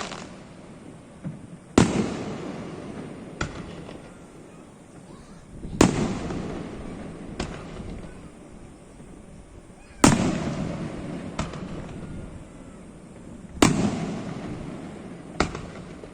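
Aerial fireworks shells bursting in a display: a loud bang roughly every four seconds, four in all. Each bang trails off in a rumble and is followed about a second and a half later by a smaller crack.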